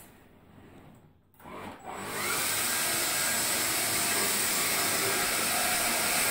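Hoover Air Cordless Lift upright vacuum switched on about two seconds in: its battery-powered motor spins up quickly and then runs steadily with a loud, even rush of air.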